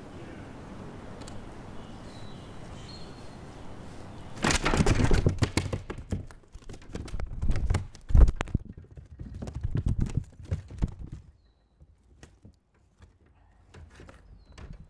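Clusters of knocking and clattering from handling on a plastic kayak deck, as a smallmouth bass is shifted on a measuring board and the landing net is moved, over a low steady hiss. The knocks come in three bursts, starting about four and a half seconds in.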